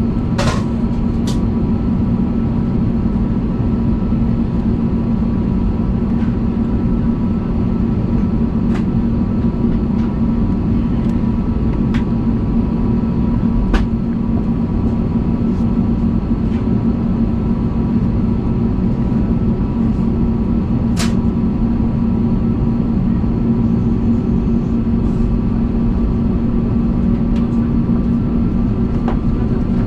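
Steady cabin noise inside an Airbus A320neo on the ground: a low rumble with a steady hum from the engines and air systems, broken by a few sharp clicks and knocks, the loudest about half a second in and again about two thirds of the way through.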